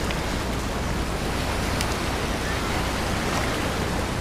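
Steady rush of ocean surf and wind along a rocky shoreline.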